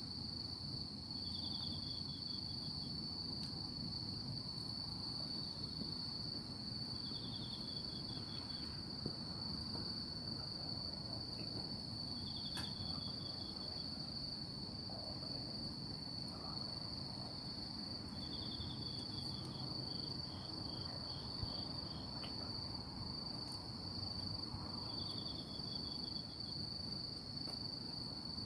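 Night insects calling: one keeps up an unbroken high, steady trill, while another gives short runs of pulsed chirps every five or six seconds, over a low steady hiss with a few faint ticks.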